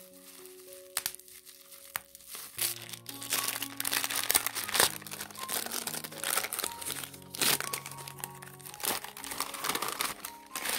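Crinkling and rustling of something being handled close up, starting about two and a half seconds in and continuing in irregular bursts, over soft background music.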